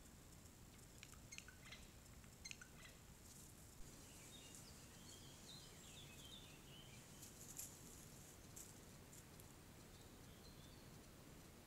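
Near silence: faint outdoor ambience with a few light ticks and some faint, distant bird chirps a few seconds in.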